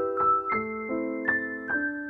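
Background piano music: a gentle melody of single notes and chords, a new note struck about every half second and left to ring.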